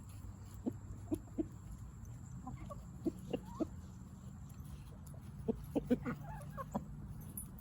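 Backyard chickens clucking in short, soft calls, a few at a time in three little clusters.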